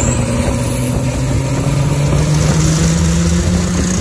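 Turbocharged Jeep Wrangler 4.0 L inline-six pulling under acceleration, heard from inside the cab. The engine note climbs steadily, and a high whistle rises in pitch over the first couple of seconds.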